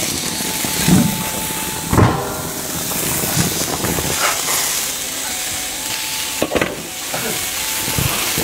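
Hot cooking oil hissing steadily in a wok, with a few short knocks.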